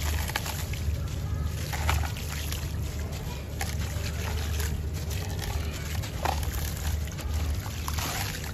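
Wet sand-cement chunks crumbled by hand into a tub of water: gritty crunching with many small cracks, and splashing and trickling as bits and loose sand drop into the water. A steady low rumble runs underneath.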